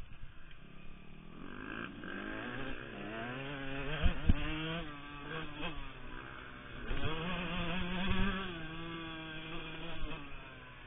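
Yamaha YZ125 single-cylinder two-stroke motocross bike engine revving, its pitch climbing and dropping again and again as the throttle is worked, with a couple of sharp knocks about four seconds in.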